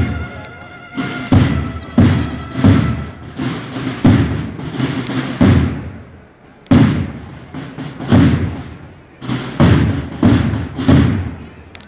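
Slow, uneven drum beats from a procession band, deep thuds roughly once a second. A few faint held tones sound under the first few beats.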